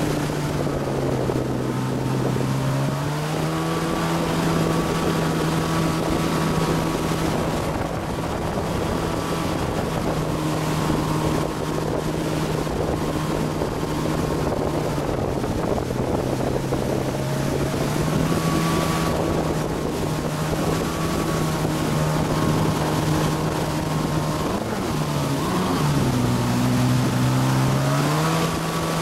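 Motorboat engine running under way while towing a tube, over the rush of the wake and wind buffeting the microphone. The engine note rises about three seconds in, eases off briefly a few times, then drops and climbs again near the end.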